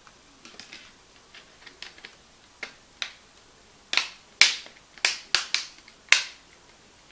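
A run of sharp plastic clicks: the Mlais M9 Plus smartphone's snap-on back cover being pressed onto its clips around the edges. The first clicks are light, and louder ones come from about four seconds in.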